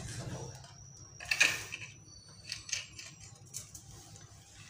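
Quiet clinks and scrapes of the reassembled monoblock water pump being handled on a hard floor, with one louder knock about a second and a half in.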